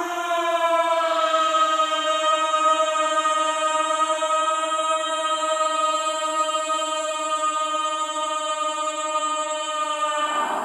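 Ghostly crying horror sound effect: a single voice-like wail held on one steady note for about ten seconds, with a slight waver.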